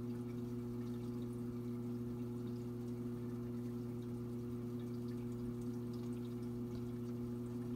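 Saltwater aquarium sump running: a steady low electrical hum with faint trickling and dripping water.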